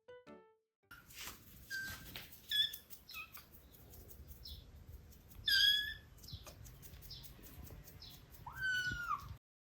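Young kittens mewing: a series of short, high-pitched mews, the loudest about five and a half seconds in and a longer rising-and-falling mew near the end.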